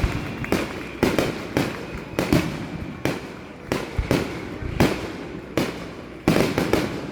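Aerial fireworks shells bursting in a rapid finale barrage: a quick series of sharp booms, about two a second, each with a rumbling echo.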